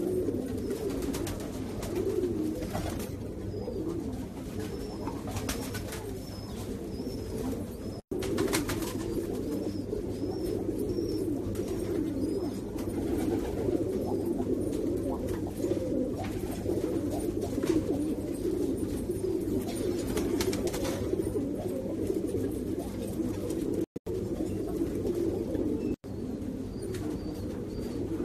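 Domestic pigeons cooing continuously in low, rolling coos, broken by three sudden brief drop-outs where the recording is cut: one about eight seconds in and two near the end.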